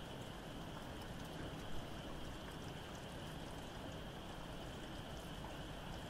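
Steady rain falling, with a distant frog chorus as a constant high trilling band behind it. One brief louder tap stands out not quite two seconds in.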